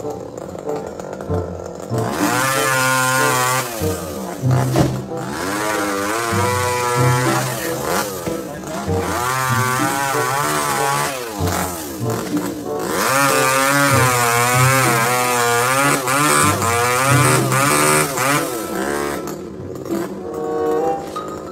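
Two-stroke chainsaw running while cutting tree limbs, its pitch rising and falling over and over as it is revved through the cuts.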